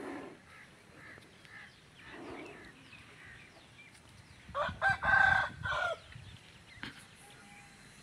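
A rooster crowing once, a pitched call of about a second and a half in a few broken pieces, starting around four and a half seconds in.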